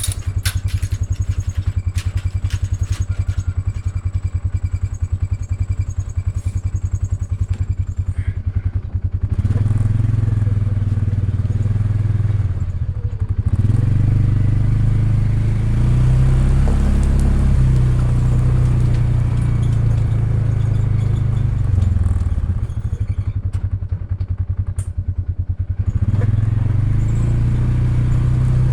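ATV engine idling with some clattering, then running louder under load from about a third of the way in. It eases back briefly twice, once shortly after and once near the end, then picks up again.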